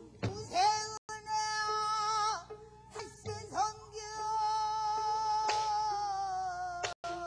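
A woman singing pansori, holding long notes with a wide vibrato. There are two sustained phrases; the second is held for about three seconds and sinks slowly at its end. Low strokes of the buk barrel drum accompany her, one near the start and one in the middle.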